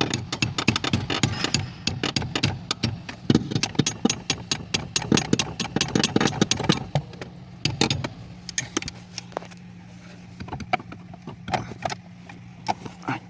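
Hammer striking a steel chisel driven into the steering shaft joint to spread its tight clamp: rapid metal-on-metal blows several times a second for about seven seconds, then slower single strikes, over a steady low hum.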